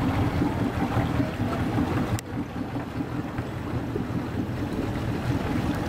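Sterndrive cruiser's MerCruiser 5.0 MPI V8 running at low speed under way, a steady low rumble, with wind buffeting the microphone.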